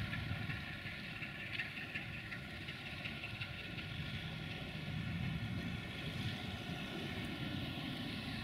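Diesel engine of a CFR 060-DA (LDE2100) diesel-electric locomotive, a Sulzer, running with a steady low rumble as the locomotive moves slowly with a container train.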